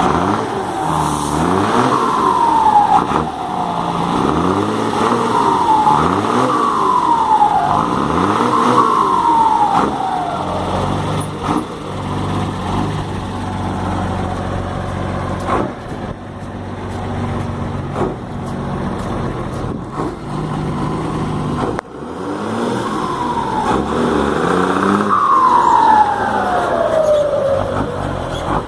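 Scania 113 truck's six-cylinder turbodiesel revved in quick blips with a comb fitted in the turbocharger, each blip followed by a loud turbo whistle that falls in pitch as it spools down. About four blips come close together, the engine then idles for around ten seconds, and two more revs near the end give a longer falling whistle.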